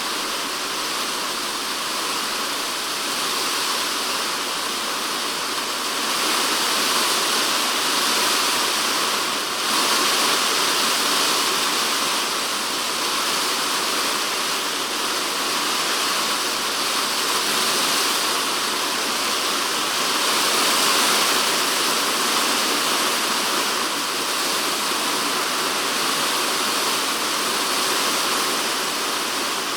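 Typhoon rain falling steadily on a polycarbonate shed roof, heard from inside the shed as a dense, even hiss of drops. It swells louder about a third of the way in and again just past the middle.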